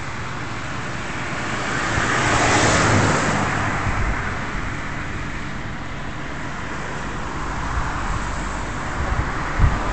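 Road traffic noise: a vehicle passes, the sound swelling and fading about two to three seconds in, over a steady traffic hum.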